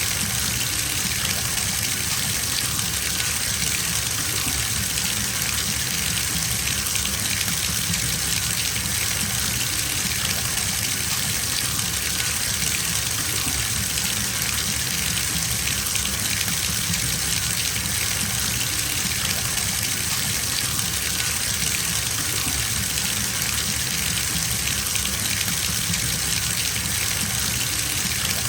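Bathtub filling from the tap: a steady, unbroken gush of running water splashing into the tub.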